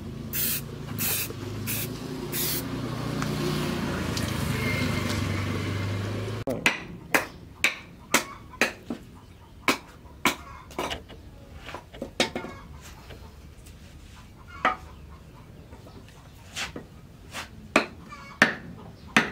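Aerosol spray can hissing in short bursts, then in a steadier hiss that stops suddenly about six seconds in. After that come short, sharp clicks and taps, roughly one a second, as the steel knife is handled.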